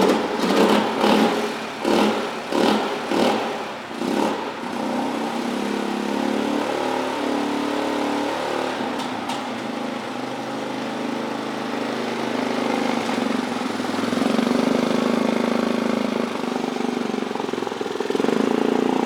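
2001 Polaris Sportsman 400 ATV's single-cylinder four-stroke engine revved in several quick blips, then running steadily.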